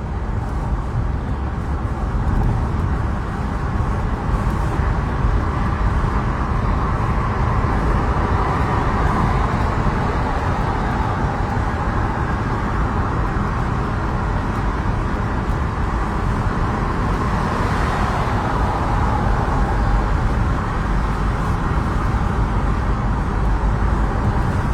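Steady road and engine noise heard from inside a moving car's cabin, a constant low rumble with a hiss of tyres and wind.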